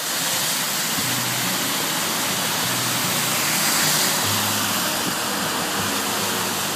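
Rushing, splashing water as vehicles drive through deep floodwater on a road, loudest about four seconds in, with low engine noise underneath.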